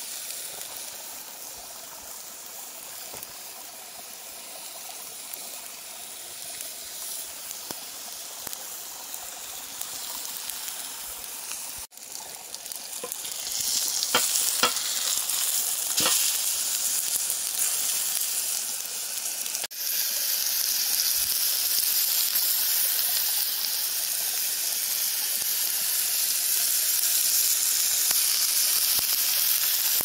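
T-bone steak sizzling on a cast-iron grill pan over a wood fire. The sizzle is moderate at first and grows louder about halfway, with a few sharp clicks as the steak is turned. In the last third it is loud and steady, with herb butter melting on the hot pan.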